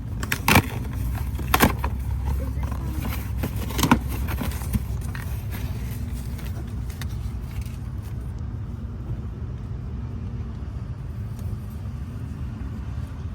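Steady low rumble of a vehicle, with a few sharp clicks and rustling from a mailed package being handled and opened in the first four seconds.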